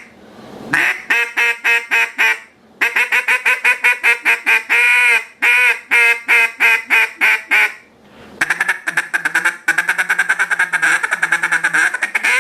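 GK Calls 'Call Girl' mallard duck call blown by hand, giving a series of loud quacks in three runs, with one longer drawn-out note in the middle run and a fast string of short quacks at the end.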